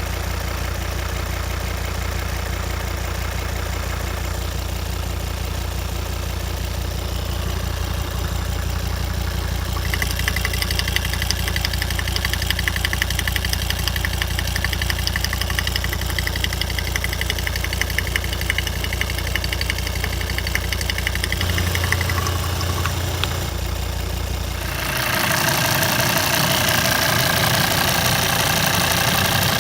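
Volvo 136 kW engine idling with a fast, steady ticking over its hum, a tick whose owner is unsure whether it is normal or a fault. About ten seconds in the ticking becomes clearer, and near the end the whole sound gets louder and fuller.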